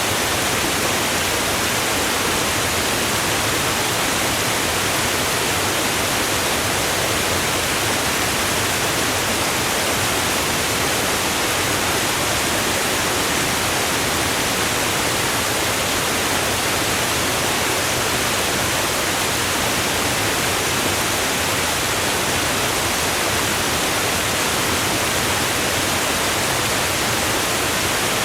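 Waterfall: a steady, unbroken rush of falling water, even and hiss-like, with no change.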